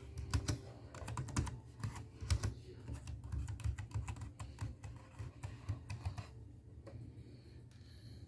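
Typing on a computer keyboard: quick, irregular key clicks that run for about six seconds and then thin out, over a steady low hum.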